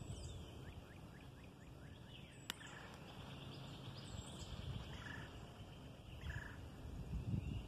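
Outdoor ambience: small birds chirping faintly, with wind rumbling on the microphone at the start and again near the end, and one sharp click about two and a half seconds in.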